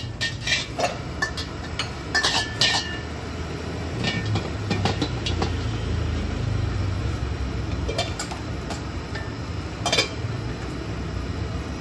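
Gas wok burner running with a steady low rumble, while a steel ladle clinks and scrapes against the steel wok in scattered strikes, the loudest about ten seconds in.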